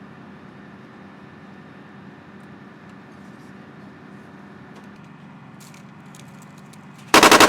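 Steady hum of an armored vehicle running, with a few light clicks. Near the end an M242 Bushmaster 25 mm chain gun opens fire in a loud, rapid burst.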